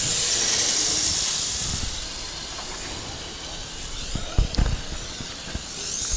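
Rushing hiss of moving air over the microphone, loudest in the first two seconds, easing off, then swelling again near the end, with a few low thumps about four seconds in.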